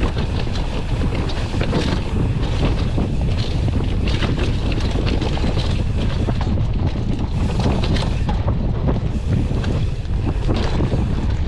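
Wind buffeting the microphone of a camera on a mountain bike descending a trail, with frequent rattles and knocks from the bike over rough ground.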